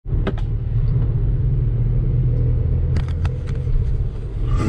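Car interior road noise while driving: a steady low rumble of engine and tyres heard from inside the cabin, with a few light clicks about three seconds in.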